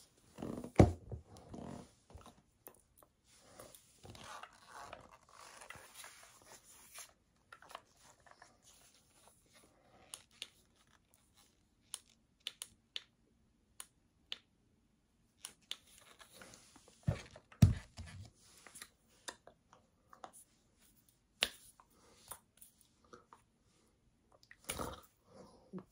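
Handling noise from a portable juicer blender bottle, a clear jar with a plastic lid: scattered clicks, knocks and rustling, with two loud thumps, one about a second in and one about two-thirds of the way through.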